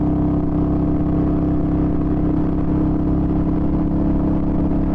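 Yamaha Virago XV250 V-twin motorcycle engine running steadily at cruising speed through a non-stock aftermarket exhaust.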